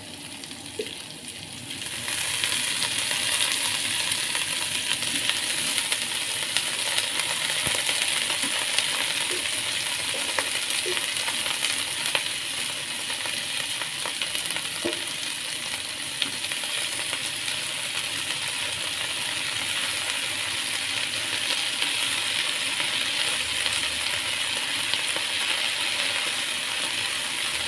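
Water spinach (kangkung) stir-frying in hot oil. A loud, steady sizzle jumps up about two seconds in, as the washed greens go into the pan.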